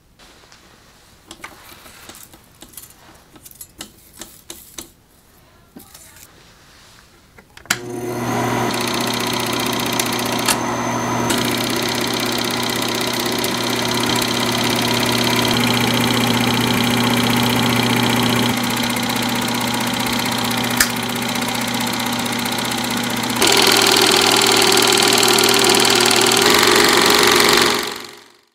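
Film projector: scattered light clicks at first, then about eight seconds in the mechanism starts and runs with a steady mechanical whirr and hum. It gets louder about 23 seconds in and cuts off abruptly just before the end.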